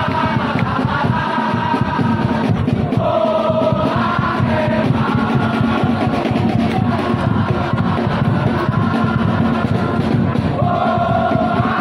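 Large crowd of football supporters singing a chant together, loud and continuous, the many voices moving between held notes.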